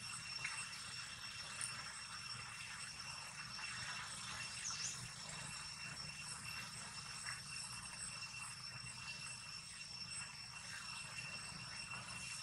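Steady outdoor ambience: an even background hiss with a faint, constant high-pitched whine running through it.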